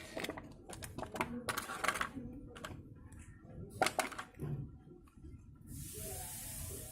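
Earphone packaging being handled and opened: a run of sharp, uneven clicks and taps, then a steady hiss from about six seconds in.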